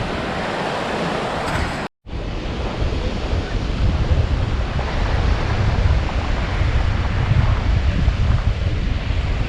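Sea surf washing on the beach, with wind buffeting the microphone. The sound drops out for a split second about two seconds in, then the surf and wind carry on.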